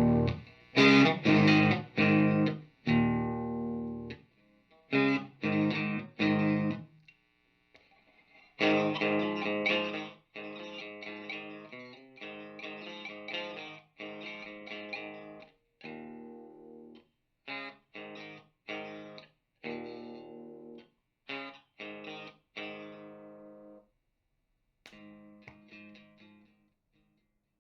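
Electric guitar played through an amplifier and speaker cabinet: chords struck in short stabs and let ring, with brief pauses between phrases, stopping shortly before the end.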